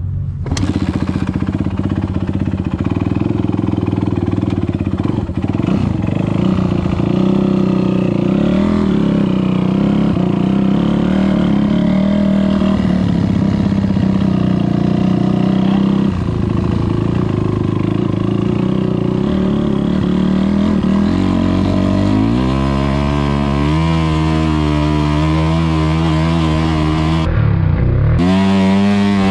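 Kawasaki KX250F four-stroke single-cylinder dirt bike engine running steadily at idle, then revving and climbing in pitch in steps as the bike pulls away and accelerates, about twenty seconds in.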